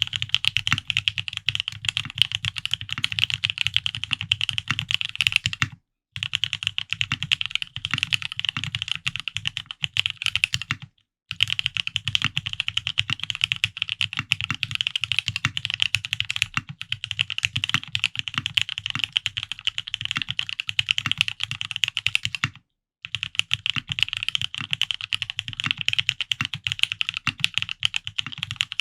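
Fast, continuous typing on a Frog mini custom mechanical keyboard with lubed Gateron Ink Black linear switches on an aluminium plate, mounted on Tadpole 80A gaskets. The keystrokes fall many to the second, each a short clack, with three brief breaks where the sound drops out completely.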